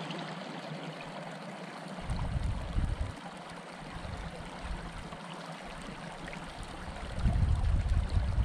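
Shallow stream running and trickling over rocks in a steady wash. Low rumbling gusts of wind hit the microphone about two seconds in and again, louder, near the end.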